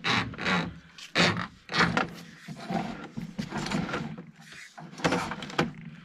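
Push cable of a RIDGID SeeSnake drain camera being fed by hand into a 2-inch cast-iron drain: a series of irregular scrapes and knocks, about one a second, as the cable slides off its reel and through the pipe opening.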